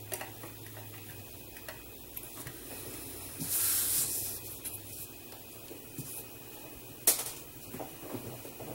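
Small clicks and taps of a screwdriver and plastic model parts being handled. There is a short hiss lasting under a second about three and a half seconds in, and a sharp click about seven seconds in.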